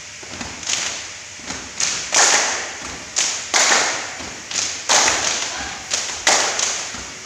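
A group of people stamping boots in unison on a concrete floor during a cheer routine: a dozen or so sharp thumps, each with a short echo, coming roughly every half second to second.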